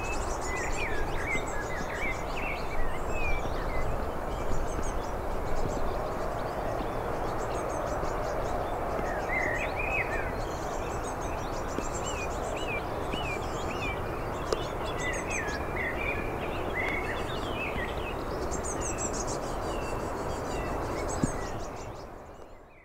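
Steady distant rumble of an Airbus A380's four jet engines as the airliner climbs away after takeoff, with small birds chirping and twittering close by throughout. All of it fades out near the end.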